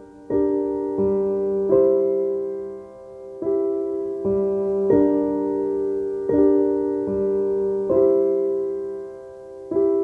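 Slow background piano music: chords struck roughly once a second, each left to ring and fade into the next.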